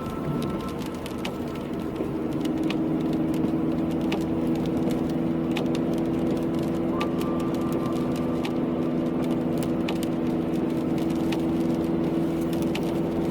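Car driving on a wet road in the rain: a steady drone that rises about two seconds in and holds level, with irregular ticks of raindrops striking.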